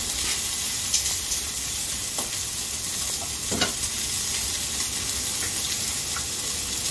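A steady hiss, with a few light clicks and knocks as chopsticks poke about inside a cardboard smoking box.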